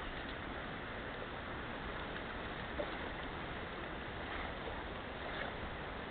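Steady rush of a shallow stream flowing over gravel, with one faint tick about three seconds in.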